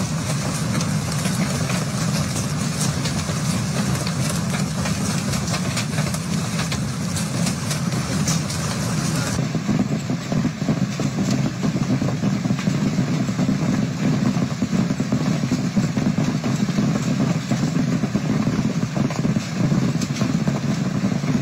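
Heavy hailstorm: a dense, continuous clatter of hailstones pelting down, with many sharp individual impacts over a low, blustery rumble. About nine seconds in the sound becomes duller, as another recording of the same storm takes over.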